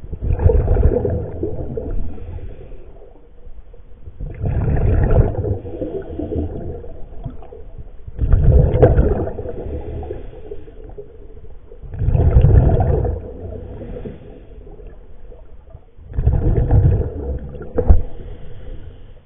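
Scuba diver breathing through a regulator underwater: five bursts of exhaled bubbles about four seconds apart, with quieter breathing in between. A sharp click comes near the end.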